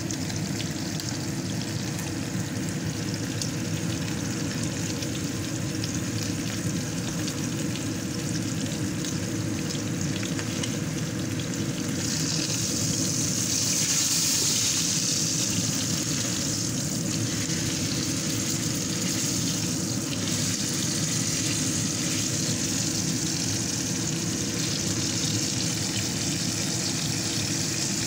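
Steak sizzling in a hot frying pan, a steady spitting fry. About halfway through the sizzle flares louder and hissier for a few seconds, then settles back.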